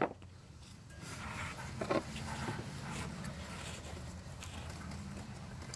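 Faint handling noises of fingers working a wiring connector and plastic parts in a car headlamp housing: a few light clicks and rustles over a steady low hum.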